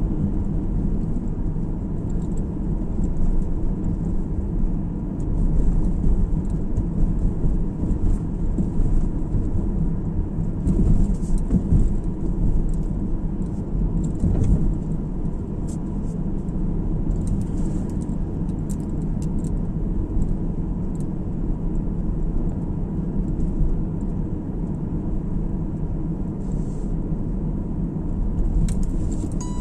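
Car driving on the road: a steady low rumble of tyres and engine, with faint small ticks now and then.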